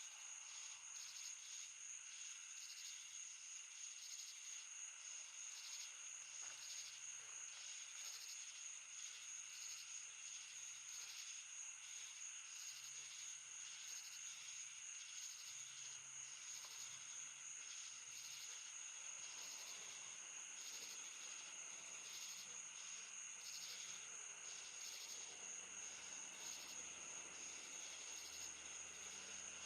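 Crickets and other insects chirping: a steady high trill with faint chirps repeating about once a second.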